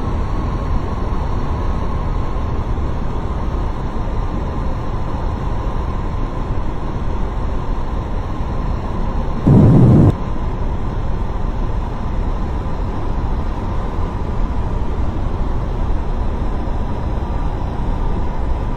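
Steady roaring noise of an aeroplane with a constant whine over it, broken by one loud, short thump about halfway through.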